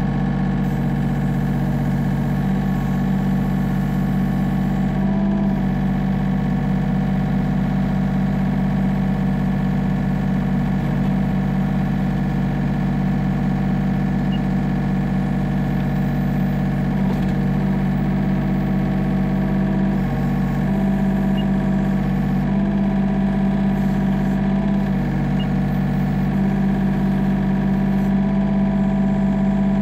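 Yanmar B37 mini excavator's diesel engine running steadily, heard from the operator's seat while the boom and bucket are worked. Its pitch wavers briefly a few times, around five seconds in and again near twenty and twenty-five seconds, as the hydraulics take load.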